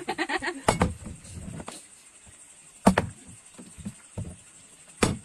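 A small bottle knocking on wooden floorboards as it is flipped and lands: a few sharp thuds, the loudest about three seconds in.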